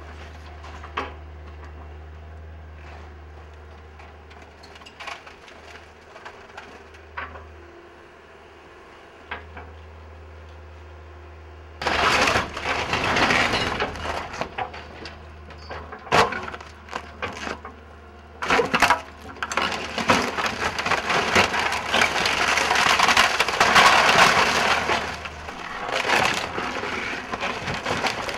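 Building demolition: timber cracking, splintering and crashing as the structure is torn down. For the first twelve seconds there are only scattered sharp cracks over a steady low hum. Then loud crashing and breaking starts suddenly and goes on in repeated waves.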